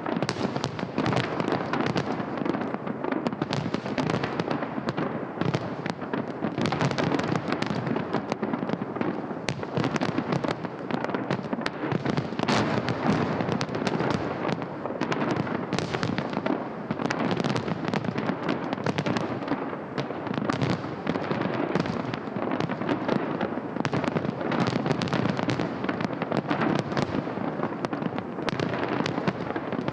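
Festive fireworks salute: a dense, unbroken barrage of bangs and crackles.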